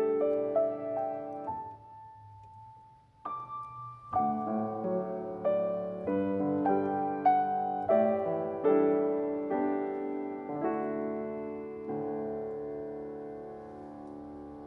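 Slow, quiet piano music, played as chords and single notes that ring and decay. The playing thins to a lone held note for about two seconds near the start, resumes more fully, and closes on a chord that slowly dies away over the last few seconds.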